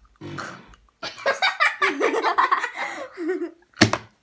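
Girls laughing and giggling, the laughter wavering in pitch, with a short sharp burst near the end.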